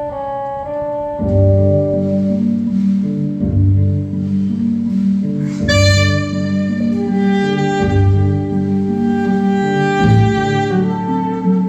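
Saxophone playing a slow melody over an accompaniment with a steady bass line and chords; a long held note begins about halfway through.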